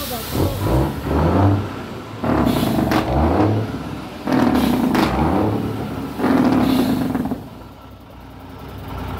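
ERF lorry tractor unit's diesel engine revving in about four surges as it drives past, then dropping back to a lower level near the end.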